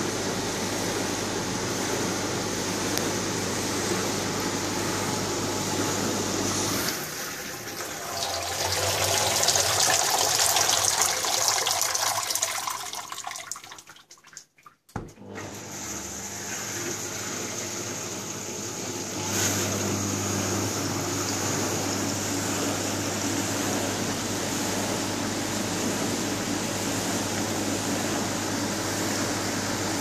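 Electrolux commercial undercounter dishwasher running its cycle: a steady pump hum with water spraying inside. About seven seconds in the hum stops and a louder rush of water swells for several seconds, dies away to a moment of quiet near the middle, then the machine starts up again and the steady hum and spray carry on.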